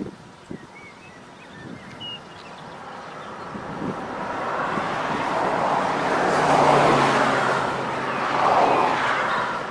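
A motor vehicle passing close by: its noise builds over several seconds, peaks twice near the end, then starts to fade, with a low engine hum beneath it.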